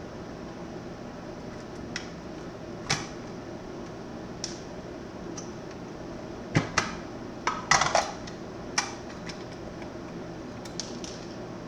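Scattered small, sharp clicks and taps of a screwdriver and hard parts being handled while an electronics unit is taken apart, with a quick cluster of them about two-thirds of the way in. A steady low hum runs underneath.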